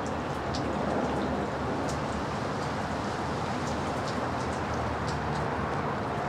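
A brief hailstorm: rain and hail falling in a steady hiss, with scattered sharp ticks throughout.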